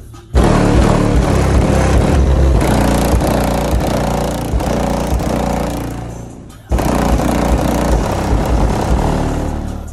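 Chevrolet Tahoe's car audio system, with six Skar ZVX 15-inch subwoofers, playing bass-heavy music at very high volume, heard from outside the truck. The bass cuts in sharply, fades away after about six seconds, then cuts in sharply again and fades near the end.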